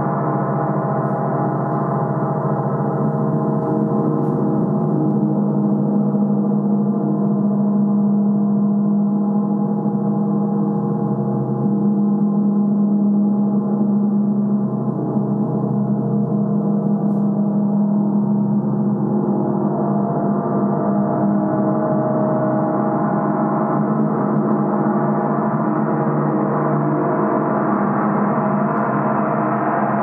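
A large symphonic gong, about 60 inches across, keeps up a sustained, shimmering wash of many overlapping tones, deepest and strongest in its low hum. No single strike stands out. The higher overtones thin out in the middle and swell back up near the end.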